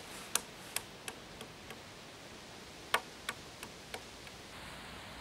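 Hard-boiled egg tapped against a park bench to crack its shell: a run of light, sharp taps about three a second, a short pause, then a second run of taps that begins with the loudest one.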